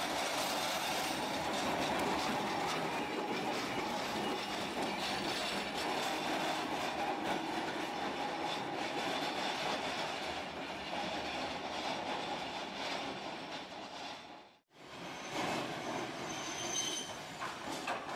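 Tosaden 600-series streetcars running on street track: steady rolling clatter of wheels on the rails. The sound drops out for an instant about fifteen seconds in, then a thin, high wheel squeal rises over the rolling noise.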